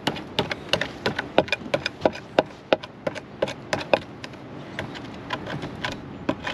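Axe head striking and chipping at the rusted metal face of an old Detecto bathroom scale in a quick, irregular run of sharp taps, several a second, knocking off rust slag to bare metal.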